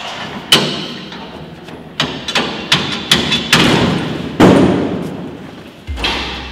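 About eight heavy bangs and clanks at irregular intervals, each echoing briefly: the metal gate and sides of a slaughterhouse pig pen being worked and struck.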